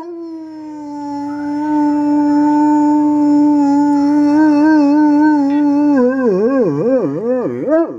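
Dog howling: one long held note that starts to waver about four seconds in and swings widely up and down in pitch near the end.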